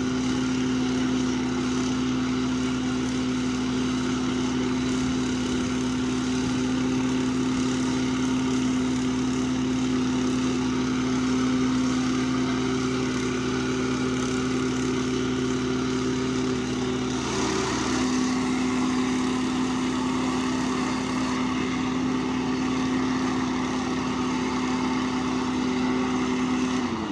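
Small engine-driven machine running steadily at one even pitch, with a hiss that gets stronger about two-thirds of the way through. Right at the end its pitch starts to fall as it winds down.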